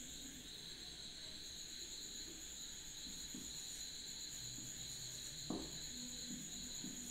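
Faint marker strokes and a light tap on a whiteboard, over quiet room tone with a steady high-pitched whine.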